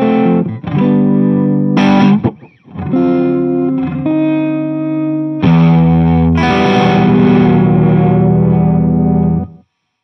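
Electric guitar chords played through a home-built combo pedal with its Phaser 45 section engaged. Notes and chords ring out with a short gap about two and a half seconds in. A loud chord about five and a half seconds in rings with a slow wavering until the sound cuts off abruptly near the end.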